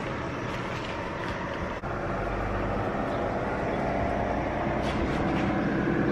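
A steady mechanical rumble with a low hum that grows slowly louder, broken by a brief dropout about two seconds in.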